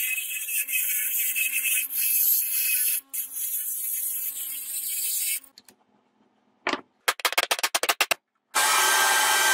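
Grinding wheel grinding the edge of a steel knife blank cut from a bearing, a steady hiss over the motor's hum, which stops about five seconds in. After a short gap comes a quick run of about ten sharp metal taps as a center punch is struck on a brass plate. Near the end a drill press starts drilling the brass.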